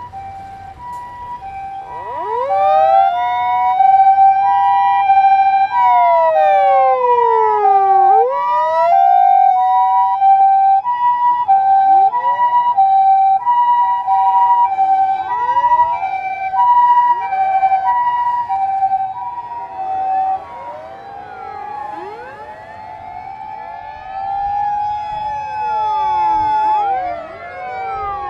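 Sirens of emergency vehicles driving past. A Japanese ambulance's two-tone hi-lo siren alternates steadily until about 20 s in, under a wailing siren that climbs, holds its pitch, then falls and climbs again. Toward the end, several wailing sirens overlap.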